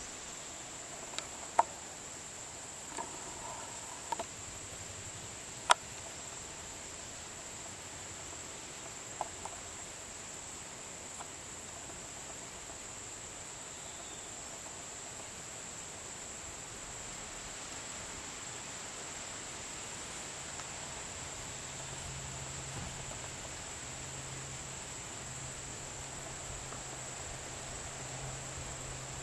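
Steady high-pitched insect drone, with a few sharp clicks in the first six seconds and a low hum joining in about twenty seconds in.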